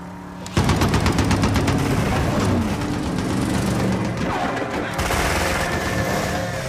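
Rapid machine-gun fire breaks out suddenly about half a second in and keeps going in long bursts over running car engines.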